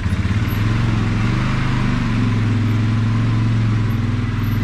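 Polaris 570 quad's single-cylinder engine running as the ATV drives off. About half a second in it comes up off a pulsing idle to a smooth, steady note.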